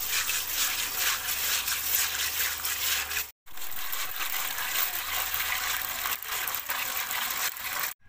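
Running water pouring into a bowl and splashing while hands swish and rub pieces of dried fish in it. The sound cuts off for a moment a little past three seconds in, then resumes.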